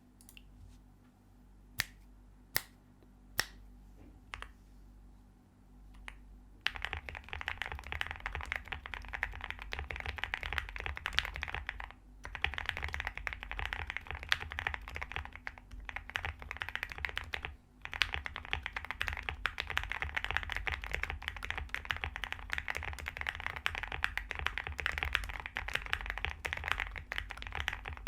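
Custom Jelly Epoch mechanical keyboard with lubed Gateron Black Ink linear switches, MT3 keycaps and a polycarbonate plate being typed on: a few separate keypresses at first, then fast continuous typing from about a quarter of the way in, with brief pauses.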